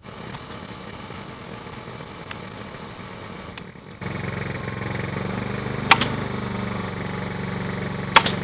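An air compressor runs steadily, getting louder about four seconds in. A pneumatic staple gun fires a sharp shot about six seconds in and two quick shots near the end.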